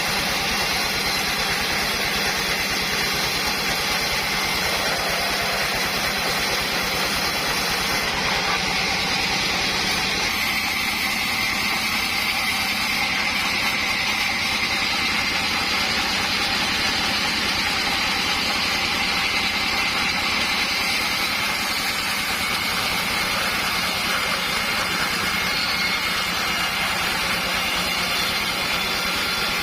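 Homemade sawmill running steadily: a continuous mechanical noise from its saw and drive, changing slightly in tone about ten seconds in.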